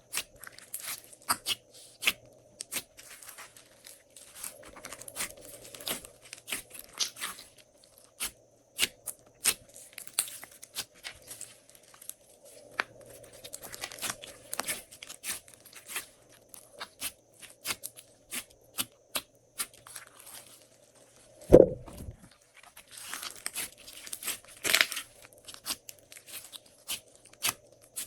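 Glossy slime being kneaded and stretched by hand, giving off many sharp sticky clicks and pops and short crackling bursts. One loud low thud comes a little past two-thirds of the way through.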